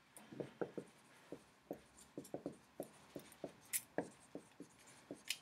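Dry-erase marker squeaking on a whiteboard in a quick run of short, separate strokes as an arrow and a word are written.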